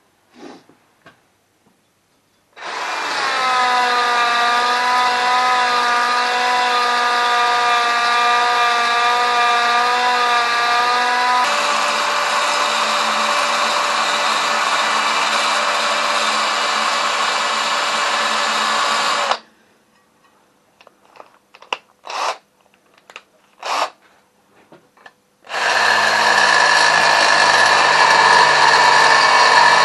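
Power drill running under load, drilling out a weld blob in an oil pump cover's screw hole: one long run of about seventeen seconds whose tone shifts partway through, a few knocks, then a second shorter run.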